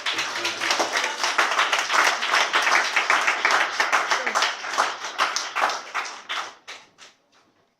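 A church congregation clapping in praise, many hands at once with voices calling out among them, the clapping thinning and dying away near the end.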